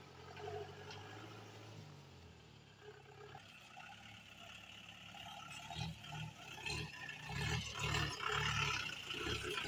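Mahindra jeep engine running as it crawls over a rough dirt track, growing louder in the second half, with a pulsing, labouring note as the jeep climbs close by.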